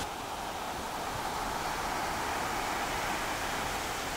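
Breaking ocean surf: a steady rushing noise of waves and whitewater, mixed with wind.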